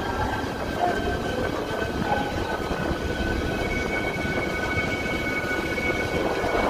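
A vehicle running steadily: a low rumble with thin, steady high whining tones over it.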